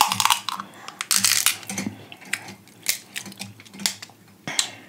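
Scattered sharp clicks and crackles of crab shells being cracked and picked apart while eating, with a louder crackling burst about a second in and another near the end.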